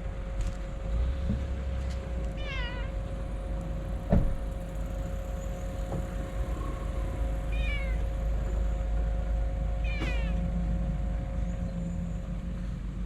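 Stray cat meowing three times, short calls a few seconds apart, over a steady low background rumble. A single sharp thump about four seconds in.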